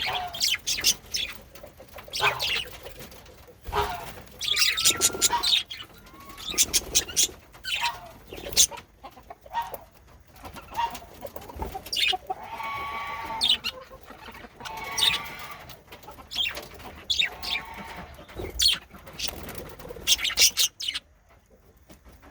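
Male budgerigars chirping and chattering: a fast run of short high chirps, with a few longer warbled notes in the middle.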